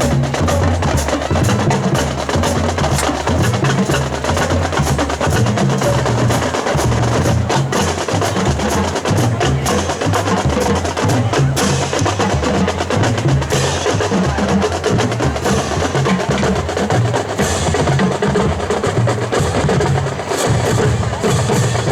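Marching band drumline playing a cadence: rapid snare and tenor strokes over tuned bass drums stepping between pitches.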